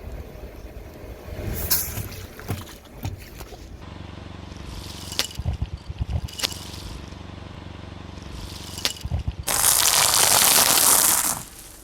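A car tyre rolling slowly over objects and crushing them: scattered crackles and pops over the car's low idling engine, then a loud rushing burst lasting about two seconds that cuts off near the end.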